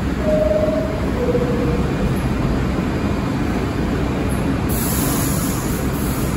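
New York City subway car's two-note descending door chime, the signal that the doors are about to close, over the steady low rumble of the stopped train. Near the end a hiss of air starts.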